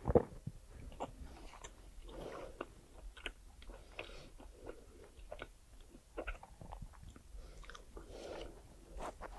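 A man chewing a mouthful of grilled shashlik, with small wet clicks of the mouth throughout. Just at the start, a mug is set down on the table with a single knock, the loudest sound.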